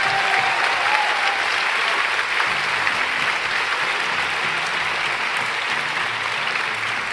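Audience applauding: a large crowd clapping steadily, easing off slightly toward the end.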